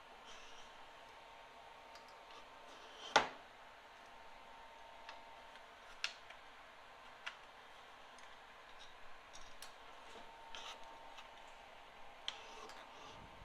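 Scattered light metallic clicks and ticks from a snowblower's auger cable and fittings being handled during installation, with one louder sharp clank about three seconds in.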